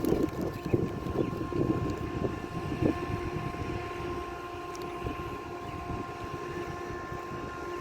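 Steady mechanical engine hum with a constant pitch. Irregular crunching and rustling noises sound over it for the first few seconds.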